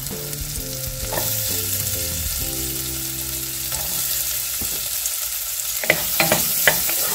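Diced onion sizzling in melted butter with garlic and ginger in a saucepan. From about six seconds in, a wooden spoon stirs it, with sharp knocks and scrapes against the pot.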